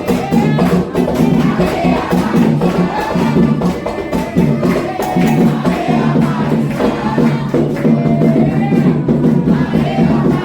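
Candomblé ritual music: a group of voices singing a chant over steady atabaque hand-drumming and rattling percussion.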